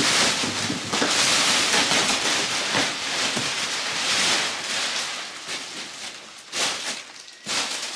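Thin clear plastic sheeting crinkling and rustling as it is pulled and lifted off a mattress, loud for the first few seconds, then dying down to a couple of short rustles near the end.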